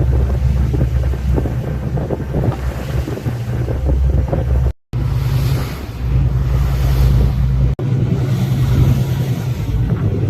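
Boat engine running steadily at sea, with wind buffeting the microphone and water rushing past the hull. The sound drops out briefly about five seconds in and cuts again near eight seconds.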